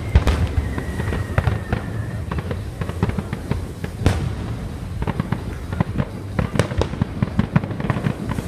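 Fireworks going off in a continuous barrage: many sharp bangs and crackles at irregular intervals over a low rumble, with a faint falling whistle in the first two seconds.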